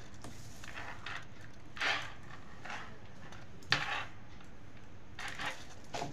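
Tarot cards being drawn and laid down on a table, with the deck handled: a few short, soft slaps and rustles, the sharpest a little after the middle.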